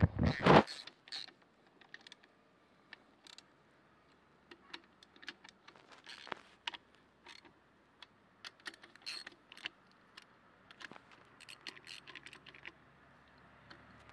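Irregular light metallic clicks and taps with short quiet gaps, as engine parts or tools are handled.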